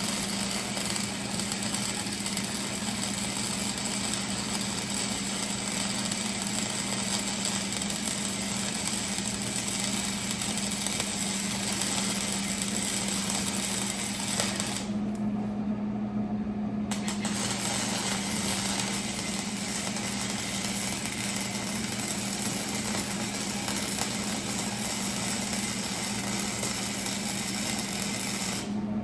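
Electric welding arc crackling steadily as a bead is laid on a leaf spring slider bracket. It stops for about two seconds midway and then resumes, stopping again near the end, with the welder's steady hum underneath.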